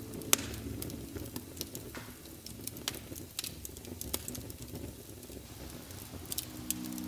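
Wood fire crackling in a fireplace: scattered sharp pops over a low, even rumble, with the loudest pop about a third of a second in.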